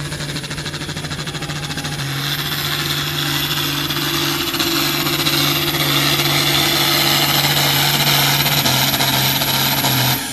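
Turbocharged diesel engine of an International Harvester Turbo farm tractor running at full power while pulling a weight-transfer sled, with a steady engine note. A high turbo whistle comes in about two seconds in and the sound grows louder, then drops off sharply near the end.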